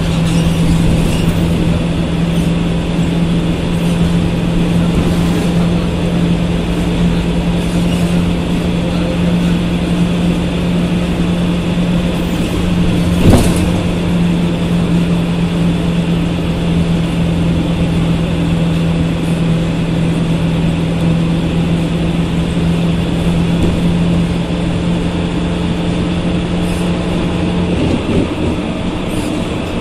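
Ikarus 280 bus's Rába D10 diesel engine and ZF 4HP 500 automatic gearbox running, heard from inside the passenger cabin: a loud, steady hum of unchanging pitch that drops away near the end. One sharp knock about 13 seconds in.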